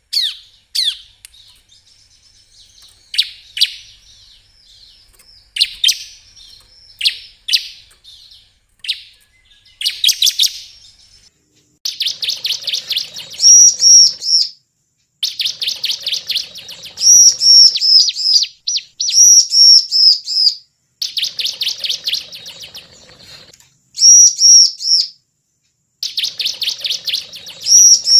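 Ciblek (bar-winged prinia) song from a lure recording. For the first ten seconds or so there are scattered short chirps. From about twelve seconds in come loud, rapid chattering trills of a second or two each, repeated with short pauses.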